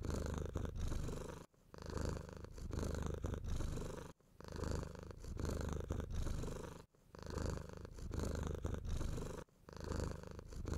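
Cat purring in a steady rumble that breaks off briefly every two to three seconds as it breathes.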